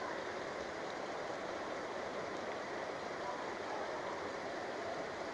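Steady, even background whoosh of room noise, with no distinct events.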